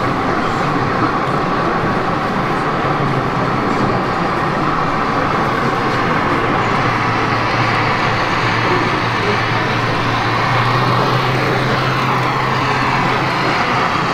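Model trains running on an exhibition layout: a steady mechanical rumble, with a low hum that comes up about halfway through and drops away shortly before the end.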